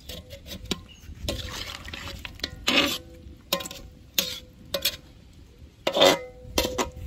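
Slotted metal spatula scraping and knocking against a large metal cooking pot while stirring a chicken and potato curry, in a string of uneven clacks and scrapes. The pot rings briefly after the harder knocks, the loudest about six seconds in.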